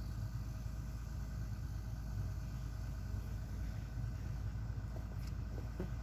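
Diesel engine of a CAT 320D2 excavator idling steadily while the machine stands still.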